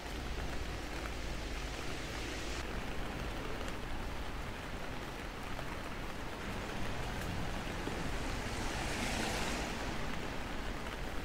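Steady rain on wet pavement and road. About nine seconds in, a car's tyres hiss past on the wet road, swelling and fading.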